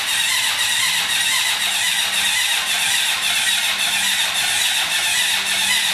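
Honda CB750 four-cylinder motorcycle engine running steadily just after starting, its first run after a rebuild from flood damage.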